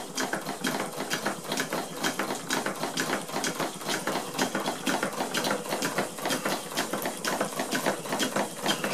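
Two Stuart model steam engines, a beam engine and a Stuart No. 8, running together on steam from a Stuart 504 boiler. A fast, uneven ticking clatter of exhaust beats and moving parts over a steady hiss of steam.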